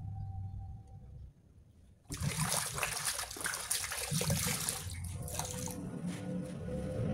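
Kitchen tap turned on about two seconds in, water running from the faucet and splashing onto a metal bowl in a stainless steel sink while a sponge is rinsed under the stream.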